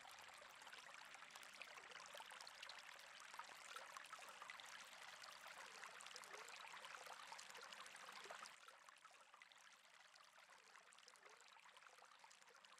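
Faint, wet crackling of mayonnaise-coated shredded cabbage and carrot being stirred with a plastic spatula in a glass bowl. It softens about two-thirds of the way through.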